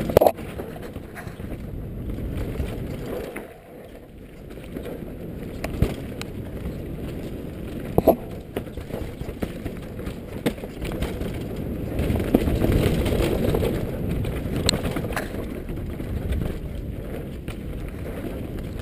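Giant Glory downhill mountain bike descending a rocky dirt trail at speed: a constant rumble and rattle of tyres and bike over dirt and stones, with sharp knocks as it strikes rocks, the loudest about eight seconds in and two more close together near fifteen seconds. Wind buffets the microphone, and the rumble eases briefly about four seconds in.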